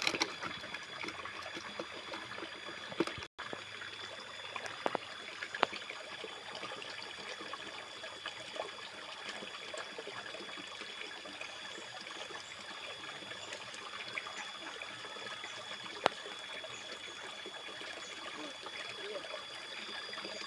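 Steady trickle of running water, with a faint high steady tone behind it and a few light clicks. The sound cuts out for an instant about three seconds in.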